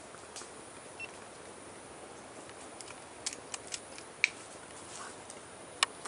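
Several sharp clicks over a steady background hiss: a few scattered, then a cluster around three to four seconds in, the loudest a little after four seconds and another just before the end.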